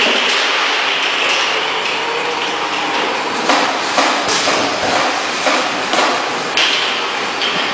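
Automatic oil-bottle filling, capping and labeling line running: a steady mechanical hiss and rattle with sharp knocks and clacks at irregular moments.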